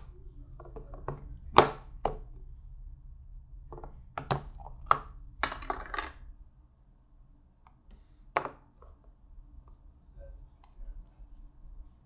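Sharp plastic clicks and knocks from a clear clip-lid plastic food container being unlatched and opened, spaced out with a quick cluster about five and a half seconds in. A low steady hum runs underneath.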